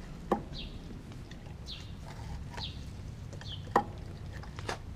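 Australian Kelpie mix dog eating raw meat and vegetables from a glass bowl. Soft chewing and mouthing sounds are broken by sharp clicks as teeth and food knock against the glass, with two loud ones: about a third of a second in and just before four seconds.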